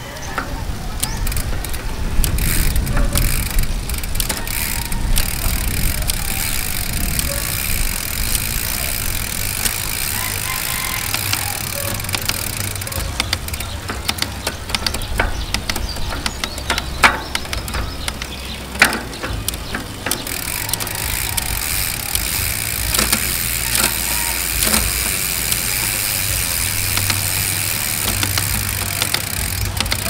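Shimano Deore drivetrain turning with the rear wheel spinning on a stand: the chain whirs over the cassette, with sharp clicks as the rear derailleur shifts the chain across the cogs to test how smoothly it changes gear.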